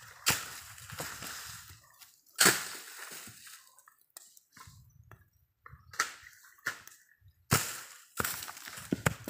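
A series of about five sudden crashes during a coconut harvest high in the palms, each dying away quickly, the loudest about two and a half seconds in.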